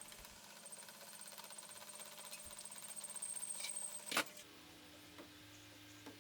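A small motor-driven tool running with a fast, even whirring rhythm that grows gradually louder, then stopping with one sharp knock about four seconds in.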